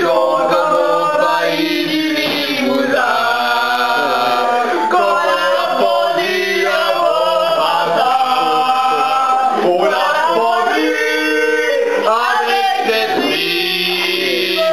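A group of people singing together loudly, with long held notes.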